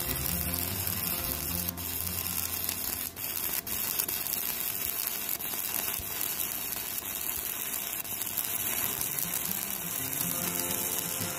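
Stick (MMA) welding arc from a Kobe MIG-235K inverter welder burning a 3.2 mm electrode on a steel bar: a steady crackle. It dips briefly twice about three seconds in.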